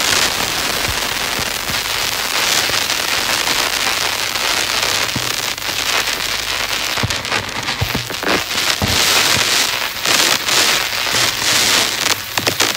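Electroacoustic noise music: a dense crackling and hissing texture dotted with scattered clicks, swelling in places.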